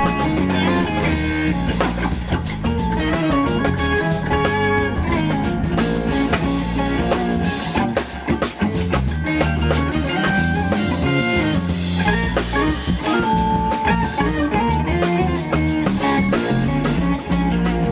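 Live jazz-funk trio of electric guitar, bass and drum kit playing, the guitar soloing in quick melodic lines over a walking bass and busy cymbals and drums.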